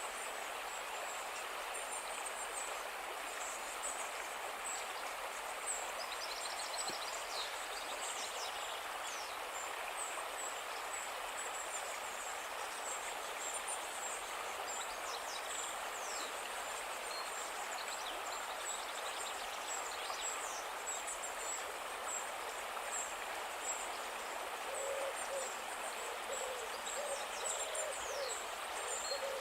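A calm river running with a steady rush of water, with high chirping calls of small birds scattered through it. Near the end, a low-pitched call repeats several times over the water.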